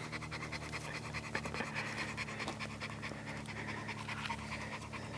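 Boxer dog panting quickly and evenly, tongue out, resting after a climb.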